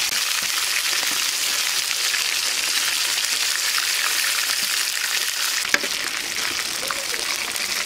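Garfish pieces frying in hot oil in an iron karahi, giving a steady dense sizzle, with one sharp knock about six seconds in.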